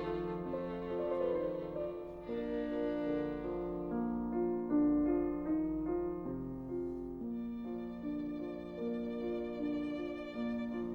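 Background music: a violin melody over sustained lower accompaniment, slow notes changing every half second or so.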